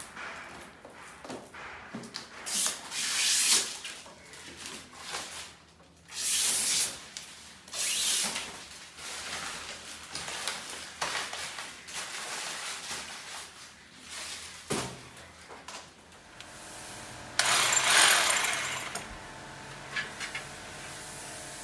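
Tool work noise: several separate bursts of hissy, scraping noise, the longest and loudest about 17 seconds in, with a steady machine hum setting in over the last few seconds.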